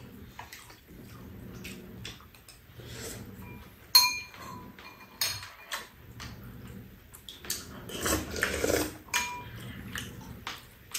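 Metal spoons and chopsticks clinking against ceramic bowls and a metal serving tray during a meal, in scattered short ringing clinks, the sharpest about four seconds in. Soft eating sounds fill the gaps between them.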